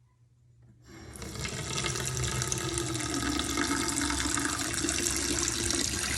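Faucet running into a bathroom vanity sink, starting about a second in and building to a steady flow as water collects in the basin of a sink that is backing up and draining slowly from a clog.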